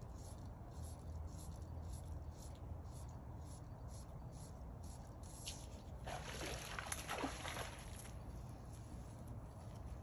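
Water splashing and sloshing for about two seconds, beginning about six seconds in, over a steady low hum and faint, regular ticking.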